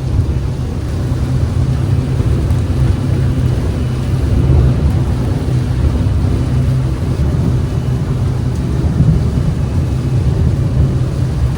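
Boat engines running steadily under way: a loud, even low drone with noise over it.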